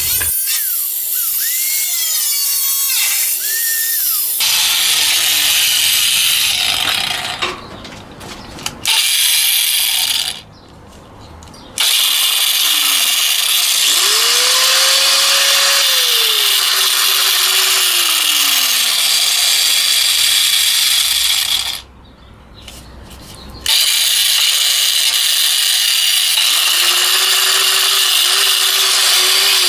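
Harbor Freight angle grinder running and grinding, a loud hissing grind with the motor's pitch sliding up and down. It stops briefly twice, about a third and three quarters of the way through.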